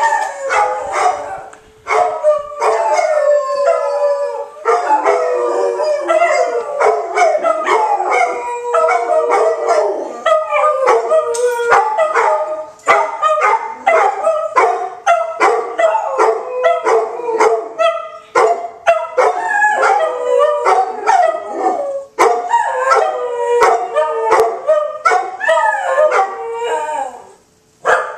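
Three dogs howling, with barks and yips mixed in: many overlapping calls that rise and fall, set off by a tornado siren's steady wail underneath during its weekly test. The dogs pause briefly about two seconds in and again near the end.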